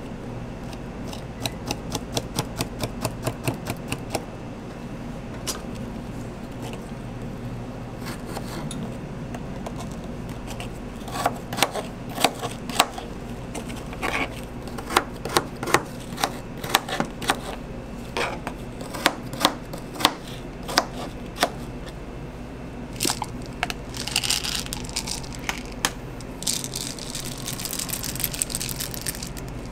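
A kitchen knife chopping on a plastic cutting board. First comes a quick, even run of taps, about five a second, as a peeled banana is sliced. Then come heavier, irregular chops through frozen strawberries, and near the end a rustling patter of cornflakes and chocolate chips sprinkled onto a crepe, over a steady background hum.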